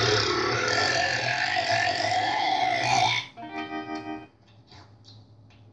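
A long, loud burp lasting about three seconds, rising in pitch near its end, followed by a short held musical note.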